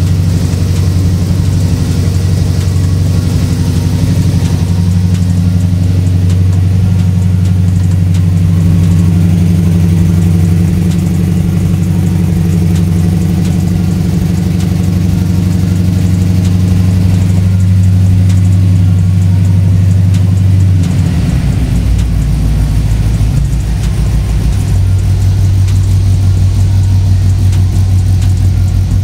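The engine of a freshly restored 1958 Chevrolet Apache pickup running steadily at idle. Its low note changes about twenty seconds in.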